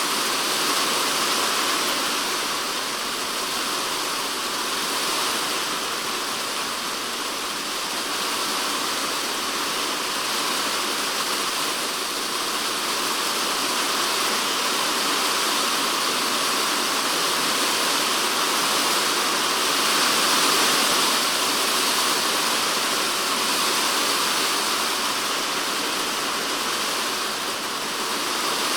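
Typhoon rain falling steadily and densely on a polycarbonate shed roof, heard from inside the shed. It is an even hiss of drops that swells and eases gently every few seconds.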